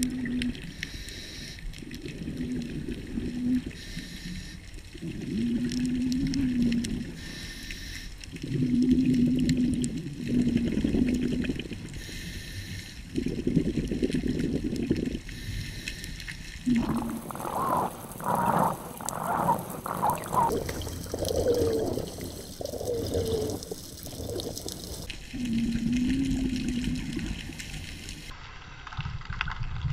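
Underwater scuba breathing through a regulator: bursts of exhaled bubbles every few seconds, each with a low, wavering buzz, and quieter gaps between them. Near the middle, a few breaths carry a higher, pulsing tone.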